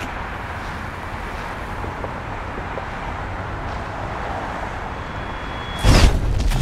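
Steady city street traffic noise. Near the end, a sudden loud crash that lasts under a second, as a window's glass shatters.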